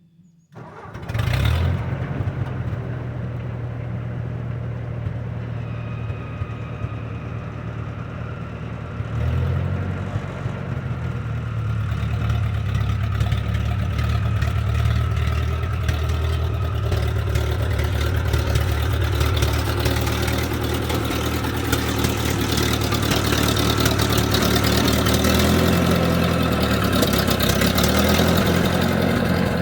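A vehicle engine starts about a second in and runs steadily, picking up briefly about nine seconds in and running a little louder through the later part.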